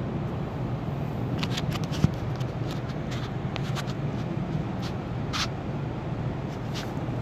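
Steady low background hum, with scattered faint clicks and rustles and a single sharp thump about two seconds in.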